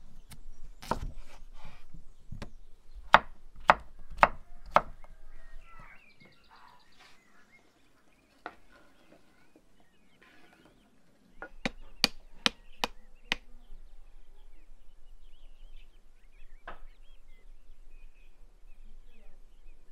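Chef's knife chopping potatoes on a wooden cutting board: a run of sharp knocks in the first five seconds, then a quicker run of five about twelve seconds in.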